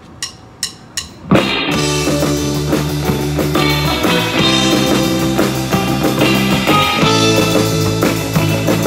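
Three sharp clicks counting in, then just over a second in a live surf rock band starts a fast instrumental: twangy electric lead guitar, electric bass and drum kit.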